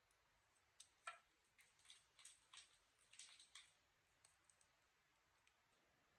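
Faint clicks and short rustling ticks, a quick run of them starting about a second in and lasting some three seconds, then a few scattered ticks.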